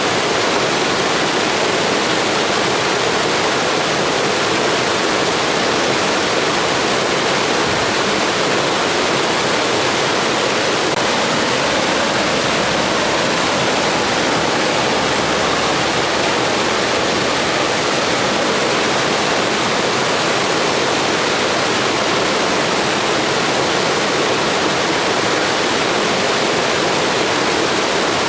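Blizzard wind: a steady, even rushing hiss that does not rise or fall.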